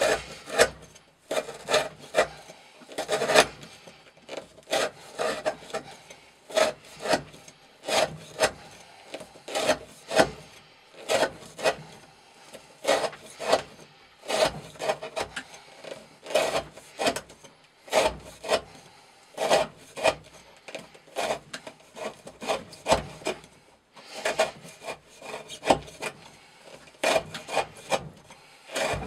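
Chris Reeve Sebenza 21 folding knife with its factory 40° V edge in S35VN steel cutting repeatedly through rope on a wooden block: short rasping, saw-like strokes, about one a second. The edge drags and won't get through the rope on the first stroke.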